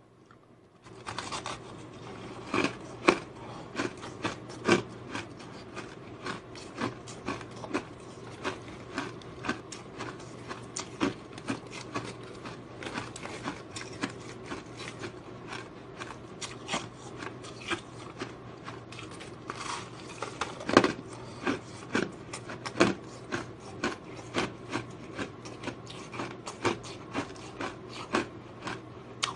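Powdery ice being bitten and chewed, a sharp crunch every second or so, with a steady low hum underneath.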